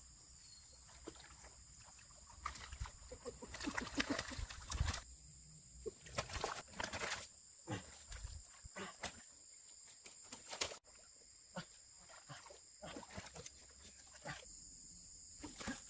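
Scattered rustling and short knocks, thickest in the first half, over a steady high-pitched insect hum.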